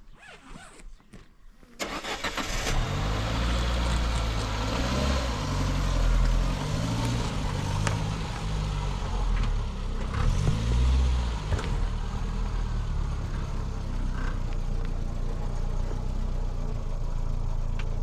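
Peugeot 405 car engine starting up about two seconds in, revving up twice, then settling into a steady idle.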